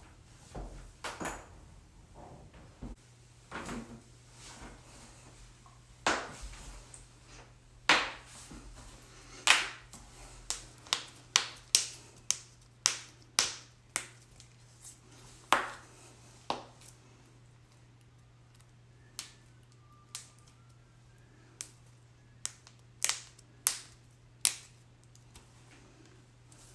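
Joints cracking: a series of sharp pops, a few spaced singly and a quick run of them in the middle, some quieter ones later.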